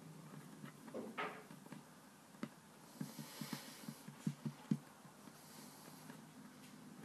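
Soft, faint thumps and taps of fingers pressing and patting play dough onto a wooden tabletop, with a few light scrapes; a quick run of taps comes about three to five seconds in.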